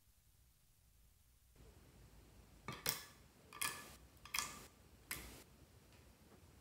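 Fingertips of both hands pressing into clear slime in glass dishes four times in a row, each press giving a short, sticky click as the fingers sink in and pull free.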